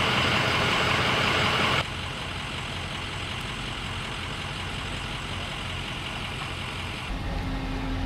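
Steady outdoor noise of vehicle engines idling, with an even hiss over a low hum. The level drops abruptly about two seconds in, and a deeper rumble comes in near the end.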